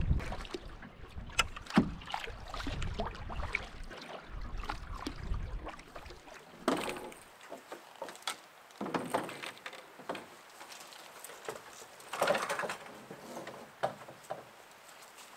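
Canoe being paddled: paddle strokes in the water about every two to three seconds, with a few sharp knocks and a low rumble in the first six seconds.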